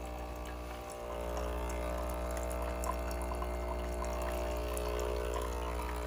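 Xiaomi capsule coffee machine's pump running with a steady hum while a thin stream of hot water pours into a stainless steel mug: the machine's first-use rinse, flushing 210 ml through to clean it. The hum gets a little louder about a second in.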